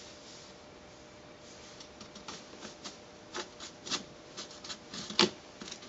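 Light, irregular scratches and clicks as a cat paws and bites at a metal-toothed comb with a wooden handle, lying on a corrugated cardboard scratcher. The loudest click comes about five seconds in.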